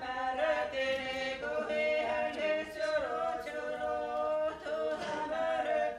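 Seto leelo: a small group of women's and men's voices singing unaccompanied in several parts at once, holding long notes. The parts shift pitch together about three seconds in.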